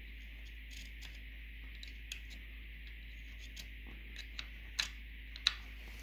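Small sharp clicks and light scraping of a screwdriver tip and small plastic parts inside a blend door actuator's plastic housing while old grease is dug out, coming more often in the second half, with two louder clicks near the end. A steady faint hiss sits underneath.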